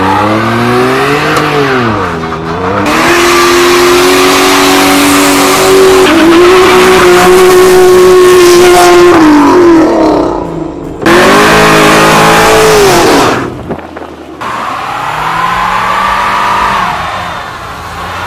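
Car engines revved hard during burnouts, the rear tyres spinning and squealing on pavement; the revs climb and dip, then are held high for several seconds. The sound breaks off abruptly twice and picks up again on a fresh run.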